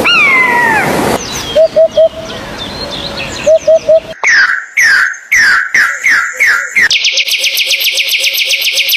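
A string of high animal calls: a falling whistle, short quick chirps, about seven downward-sweeping calls in a row, then a fast buzzy trill near the end.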